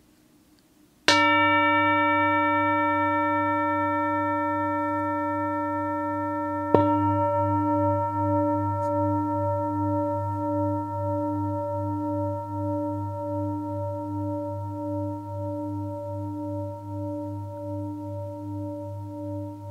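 Singing bowl struck about a second in and struck again around seven seconds, each time ringing on long with several steady tones. After the second strike the ring pulses and wavers evenly as it slowly fades.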